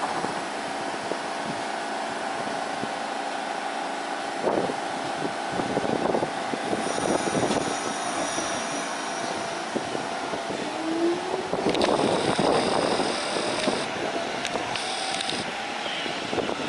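Subway train at a station platform, running with a steady hum and then a whine that rises in pitch from about eleven seconds in, as it gets under way.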